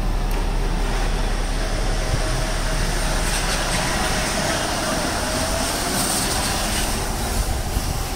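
Steady rumble and hiss of a vehicle running, with a faint whine that rises and falls in the middle.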